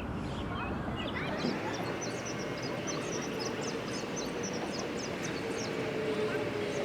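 Outdoor ambience: many small birds chirping in quick, short calls over a steady rushing background, with a faint low drone that grows stronger in the second half.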